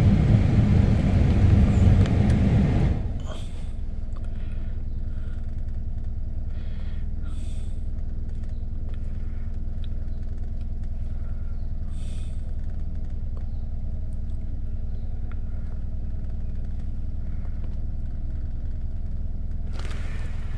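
Steady low hum of a car idling, heard from inside the cabin. A louder rushing noise over it drops away sharply about three seconds in. A few faint clicks and rustles.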